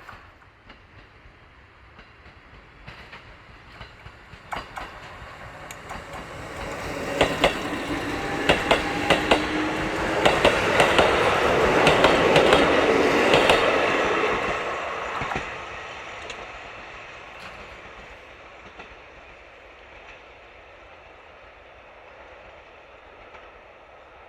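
A train passing: its running noise builds, peaks with a quick series of wheel clacks over the rail joints, then dies away.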